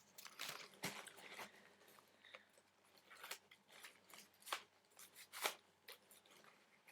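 Faint, intermittent rustling and crinkling of paper and wrapping being handled, with a light knock about a second in.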